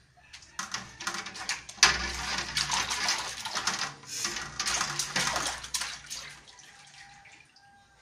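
Soapy water splashing and sloshing in a steel washing basin as a bowl is scrubbed and swished through it by hand, with a sharp knock about two seconds in. The splashing dies away about a second before the end.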